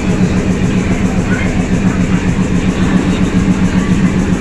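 Idling diesel locomotive: a steady low drone with a regular pulse, with crowd chatter underneath.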